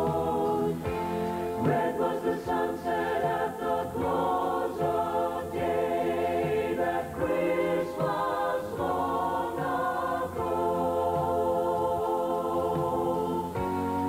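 Choir of men's and women's voices singing a Christmas song, holding long notes that change about once a second.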